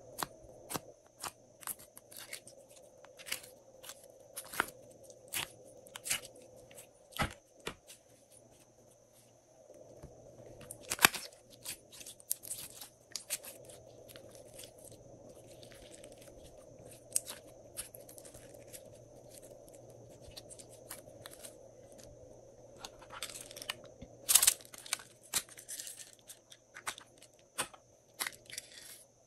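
Glossy slime being pressed, stretched and squished by hand, giving irregular sticky clicks, snaps and pops, with a few louder clusters of snaps. Small plastic slime containers are handled at times.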